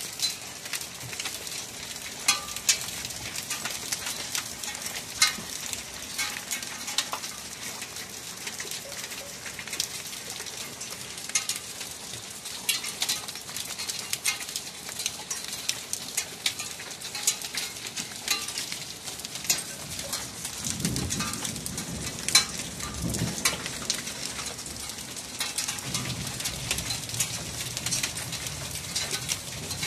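Rain falling on a wet concrete courtyard and tiled roofs: a steady hiss thick with sharp ticks of drops striking. A low rumble comes and goes in the later part.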